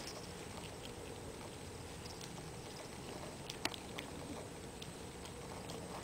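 Small Lhasa Apso–Shih Tzu dog gnawing on a rawhide chew: faint scattered clicks of teeth on the hide, with one sharper click a little past halfway.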